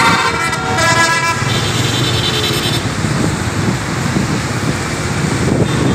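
Road traffic passing close on a wet road: engines rumbling and tyres hissing. A vehicle horn sounds steadily for about the first second and a half, then a higher-pitched horn follows until about three seconds in.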